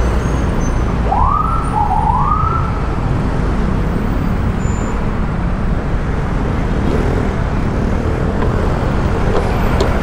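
Steady riding noise on a Yamaha Mio Gear 125 scooter in traffic, heard from a helmet-mounted microphone. A police escort's siren gives two rising whoops about a second in.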